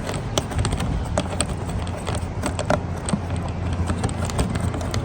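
Irregular plastic clicks and knocks as the fasteners and air filter cover on an Echo PB580T backpack blower are worked loose by hand, over a steady low hum.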